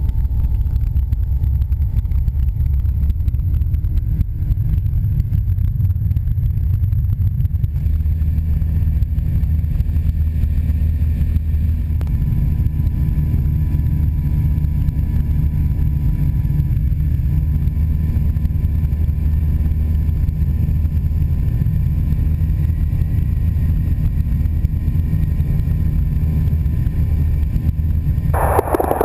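Light biplane's piston engine droning steadily in flight, heard from on board along with the rush of air.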